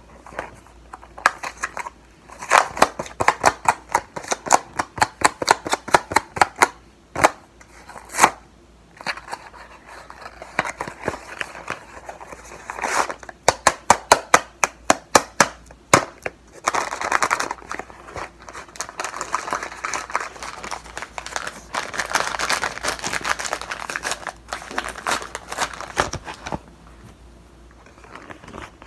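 Cardboard box of cornstarch and its paper inner lining being handled and opened: runs of rapid crisp clicks, about four a second, then a longer stretch of steady crinkling and crackling.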